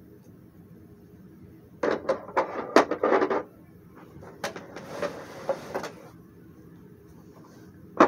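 Toy dollhouse furniture clattering as it is handled: a cluster of clicks and knocks about two seconds in. Then a rustling hiss of movement close to the microphone for a second or two.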